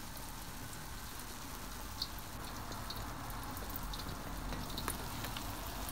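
Beaten eggs frying in cooking oil in a stainless steel pan on low heat: a soft steady sizzle with occasional small pops as the underside turns golden brown.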